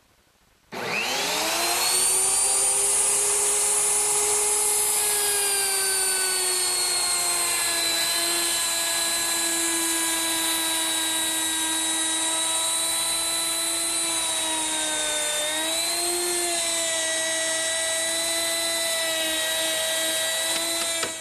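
Plunge router with a 3/8-inch rabbeting bit starting up and cutting a rabbet in the back edge of an oak case: a high whine that rises as the motor spins up about a second in, then runs steadily. Its pitch dips briefly and recovers about three-quarters of the way through.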